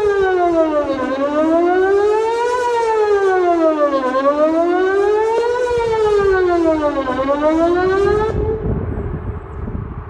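Whelen WPS 2909 electronic outdoor warning siren sounding a wail on a test, its pitch rising and falling about every three seconds. It cuts off about eight seconds in, leaving a low background rumble.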